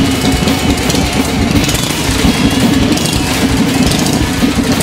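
1979 Harley-Davidson Shovelhead FXS's 80-cubic-inch V-twin running at idle on a newly fitted points-and-condenser ignition, with a steady, slightly uneven low pulsing.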